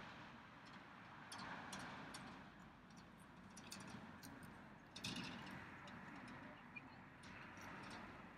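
A squirrel's faint, irregular clicks and crackles over the soft hiss of wind, with a brief cluster of louder clicks about five seconds in.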